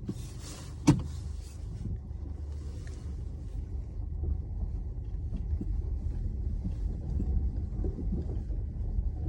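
Low rumble of a Skoda Karoq driving over small bumps and ice, heard from inside the car, with one sharp knock about a second in and a few fainter knocks near the end. The knocks are the dull thud from the right side of the suspension over small bumps, traced to worn anti-roll bar (stabilizer) links.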